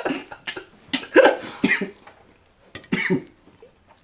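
A person coughing several times in short, separate bursts, a reaction to the burn of hot sauce.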